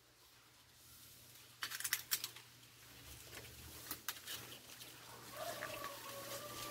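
Leaves and branches of a jambo (Malay apple) tree rustling and crackling as a child climbs in it, with a quick run of sharp snaps about two seconds in and another near four seconds. For the last second and a half a long, steady animal call is held on one pitch.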